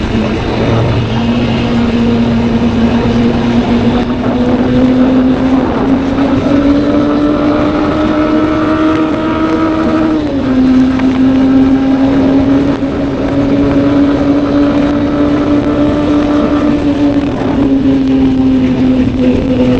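Honda motorcycle engine running under way at cruising speed. Its note climbs slowly, drops suddenly about ten seconds in as it is shifted up a gear, then holds steady.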